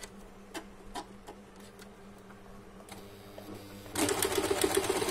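A few light clicks, then about four seconds in an Usha Janome Stitch Magic electric sewing machine starts stitching and runs steadily with a fast needle rhythm, sewing the decorative stitch set on pattern selector J.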